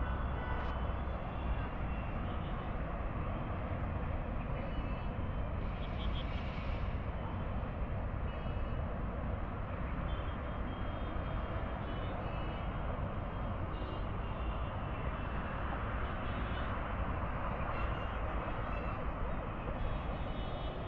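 Steady hiss and rumble of distant expressway traffic heard from high above the road, with short faint high tones now and then.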